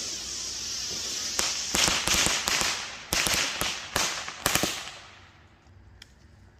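Consumer firework going off: a steady hiss with a quick string of sharp cracks and pops, about a dozen of them, dying away after about five seconds.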